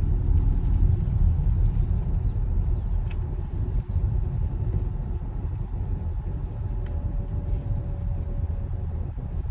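Steady low rumble of a car's road and engine noise heard from inside the cabin while driving slowly.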